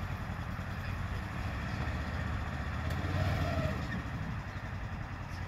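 A vehicle engine running steadily with a low rumble that swells a little about three seconds in.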